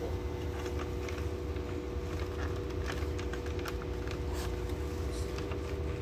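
Small scattered clicks and taps of plastic housing parts and wire connectors being handled, over a steady background hum.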